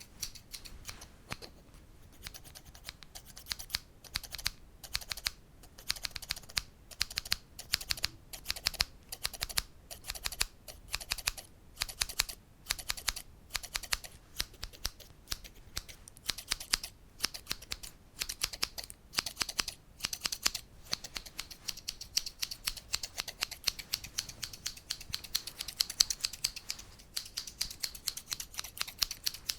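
Quick, light ASMR tapping: many small clicks a second in short clusters, blending toward the end into a near-continuous crisp rattle.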